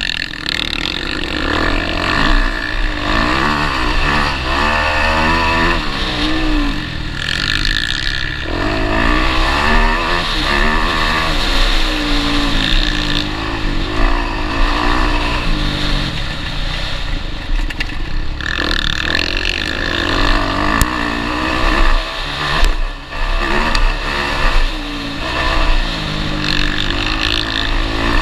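Motocross bike's engine heard from a camera mounted on the bike, revving up and falling back again and again as the rider accelerates and shifts over rough ground.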